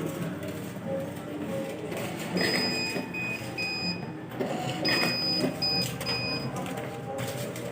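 Queue-ticket machine's thermal printer printing a numbered ticket, its feed motor giving a high whine in several short stop-start runs.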